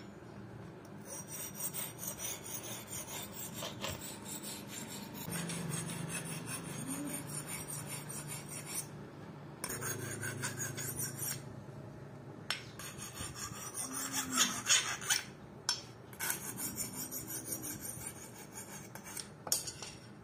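Steel hand file rasping back and forth across the edge of a hand-forged axe head, stroke after stroke, in runs broken by short pauses: the blade edge being filed.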